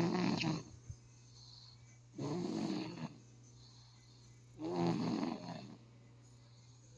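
Slow, regular snoring. One snore is ending at the start, then two more come about two and a half seconds apart, each lasting about a second.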